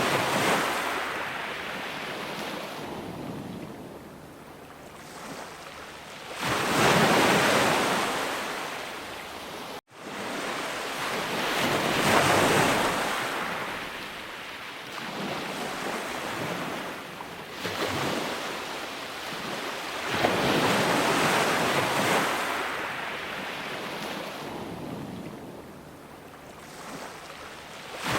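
Sea waves breaking and washing on a shore, each surge swelling and then fading every five to seven seconds. There is a split-second dropout about ten seconds in.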